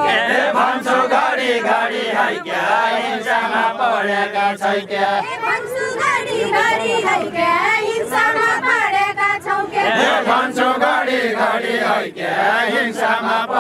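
A group of voices singing a Nepali folk song together in chorus, with the melody rising and falling in repeated sung phrases.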